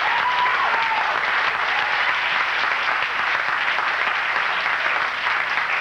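Audience applauding steadily: dense, continuous clapping from a crowd.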